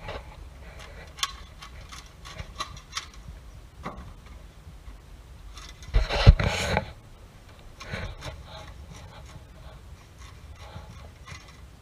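Fish being cleaned on a concrete table: blades scraping and rasping over fish and a lever cutter working, with scattered knocks and a louder cluster of thumps about six seconds in.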